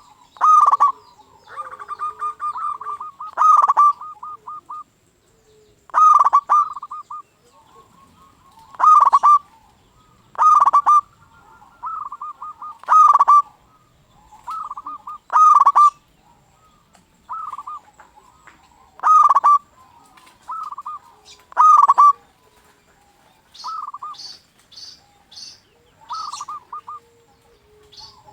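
Male zebra dove (perkutut) singing, repeating its rolling cooing phrase about every two to three seconds. A few short high chirps come in near the end.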